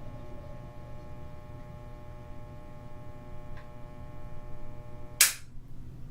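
Bathroom lamp giving a steady electrical hum with a high buzzing overtone, then a loud switch click about five seconds in, after which the hum stops. A faint tick comes a little before the click.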